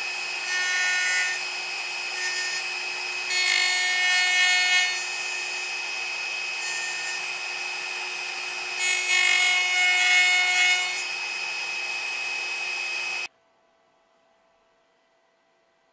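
Router spindle of a home-built woodworking milling machine running with a steady whine, its straight bit cutting a tenon on the end of a small wooden block, the cutting growing louder three times: about a second in, around four seconds, and around nine to eleven seconds. The sound cuts off suddenly near the end, leaving near silence.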